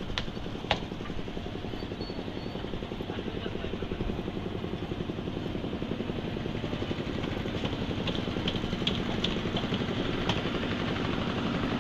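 Small stationary engine running steadily with a rapid chugging beat, growing gradually louder. A few sharp metal clinks sound near the start and again about eight to nine seconds in.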